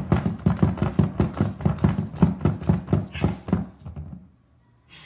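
Quick, even tapping or knocking, about five or six strokes a second, that stops about four seconds in.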